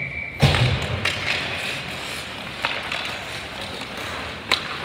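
Ice hockey play: a loud thump about half a second in, then scattered sharp clacks of sticks and puck against the ice and boards, with a louder crack near the end, over the steady hollow hiss of the rink.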